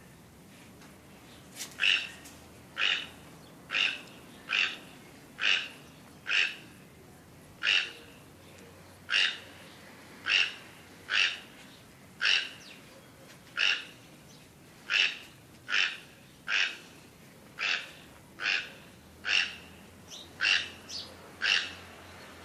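A bird calling a short, harsh single note over and over, about once a second.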